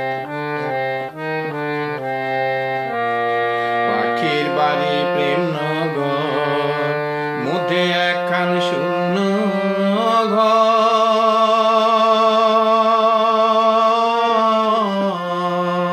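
Instrumental interlude of a Bengali folk song. A melody of short steady stepped notes gives way, about four seconds in, to a wavering line that settles into one long note held for about five seconds.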